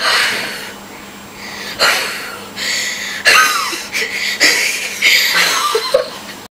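Repeated sharp puffs of breath blowing out birthday candles, about six blows one after another.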